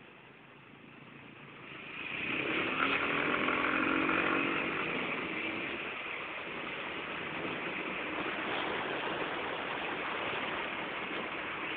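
Motor vehicle engine with road and wind noise. About two seconds in the sound swells: a droning engine note is heard for a few seconds, then a steady rush carries on.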